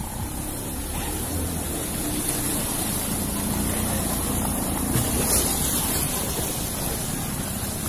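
Floodwater rushing and splashing around a motor scooter as it drives through, its engine running underneath the steady wash of water.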